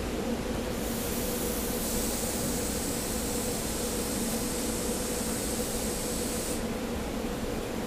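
SEPTA Silverliner IV electric railcar standing at the platform, its equipment giving a steady hum. A loud hiss starts about a second in and cuts off suddenly near the end.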